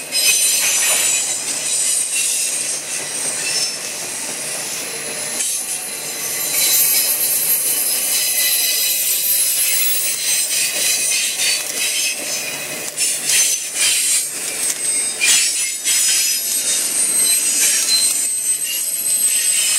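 Freight train cars rolling past, their steel wheels giving a loud, high-pitched squeal of several tones at once over the rumble and clatter on the rails. This is wheel flanges and brakes squealing as the train slows for a tight 20 mph curve ahead.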